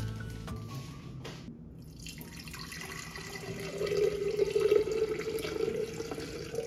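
Water pouring in a stream into a tall glass cylinder vase holding flower stems, starting about two seconds in and growing louder about four seconds in as the vase fills.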